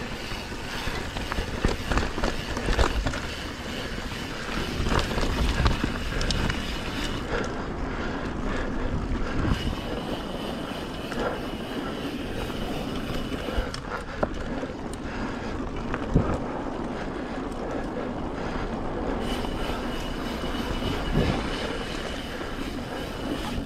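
Mountain bike rolling fast down a dirt trail: continuous rumble of tyres and rattle of the bike, with frequent knocks as it hits bumps.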